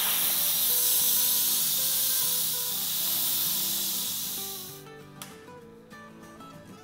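Electric pressure cooker venting the steam left after natural release: a loud hiss from the release valve that tapers off and stops after about five seconds.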